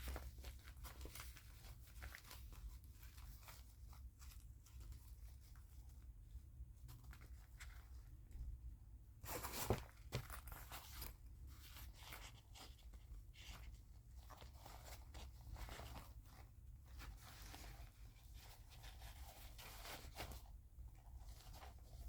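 Faint rustling and crinkling of packaging being handled and unwrapped during unpacking, with one louder crackle about ten seconds in.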